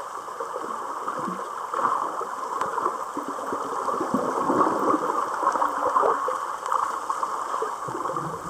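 Underwater ambience in shallow sea water: an uneven, rushing water noise with many small crackles, swelling and easing without any steady rhythm.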